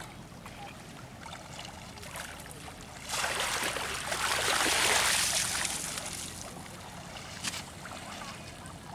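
Shallow river water splashing and rushing as a fishing net is pushed and dragged through it. The splashing starts suddenly about three seconds in, is loudest a second or two later, and fades out over the next couple of seconds, with faint lapping and small drips around it.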